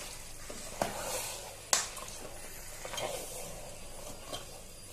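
A metal spatula stirs raw chicken pieces through onion-spice masala in a pressure cooker, knocking against the pot three times, loudest a little under two seconds in, over a soft steady sizzle of the masala frying.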